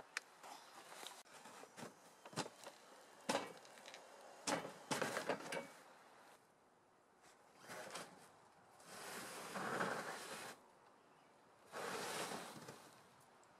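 Knocks, clicks and rattles of a tracked vehicle and its towed sled jolting over snowy forest ground, with no steady motor sound. After a short lull, longer bursts of scraping come about eight, nine and twelve seconds in.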